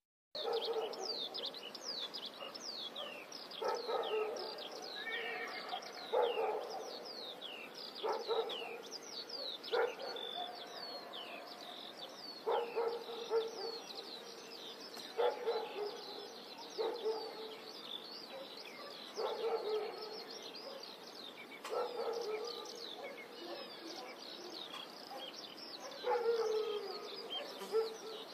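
Goats bleating over and over, one call every two or three seconds, against a steady background of birds chirping in quick falling notes.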